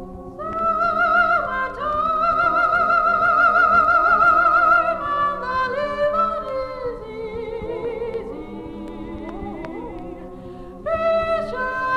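A women's a cappella vocal group singing held chords with vibrato, from a 1961 LP. A full chord comes in about half a second in, the voices soften in the middle, and they swell again near the end.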